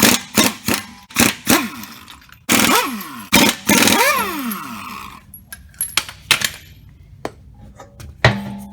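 Impact wrench on a 21 mm socket, taking off the wheel's lug nuts in a series of short bursts. Its motor pitch sweeps up and falls away as each burst starts and winds down.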